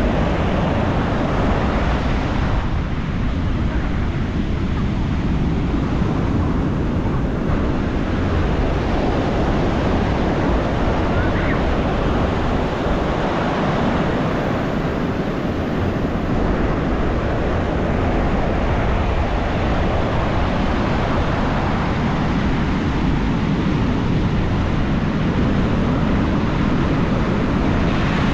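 Ocean surf: waves breaking on a beach in a continuous loud rush, swelling and easing slowly over several seconds.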